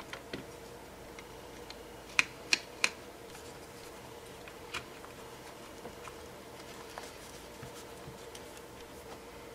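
Hard plastic clicks and light knocks from the handle shell of an 858-series hot air gun hand piece being fitted back together: three sharp clicks in quick succession about two seconds in, another near five seconds, and a few faint ticks.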